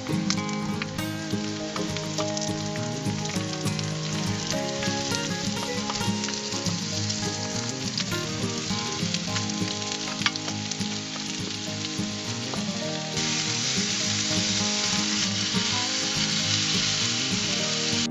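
Food frying and sizzling, a steady hiss that grows louder about two-thirds of the way through.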